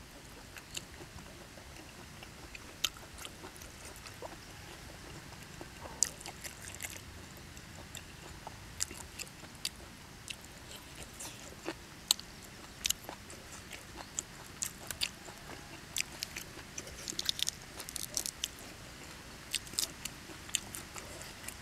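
A person chewing raw beef slices, heard close up as irregular wet mouth clicks and smacks.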